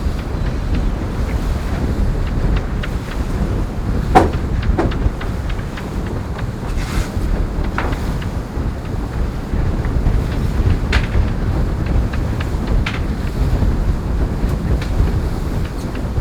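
Wind buffeting the microphone and water rushing along the hull of a racing yacht under sail, a steady low rumble broken by a few sharp knocks, the loudest about four seconds in.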